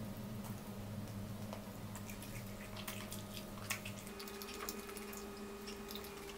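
Close wet eating sounds from someone eating fried chicken with her fingers: scattered lip smacks, finger-licking and chewing clicks, faint.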